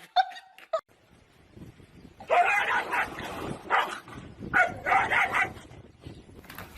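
A dog vocalizing in two loud bouts: a longer one starting about two seconds in and a shorter one about a second after it ends.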